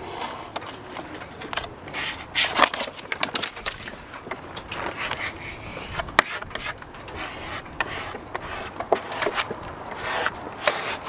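Small applicator card rubbed over the transfer sheet of vinyl decal letters on a boat's gelcoated hull, burnishing them down: irregular scraping strokes and clicks, with one sharp click about six seconds in.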